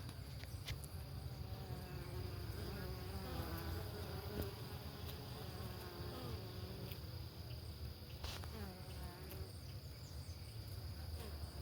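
Italian honeybees buzzing at the hive entrance: a steady low hum of many wings, with the buzz of single bees rising and falling in pitch as they fly past.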